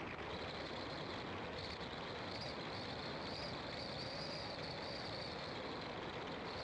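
Steady road and engine noise of a car driving, heard from inside the car. A faint high buzz swells in the middle and then eases off.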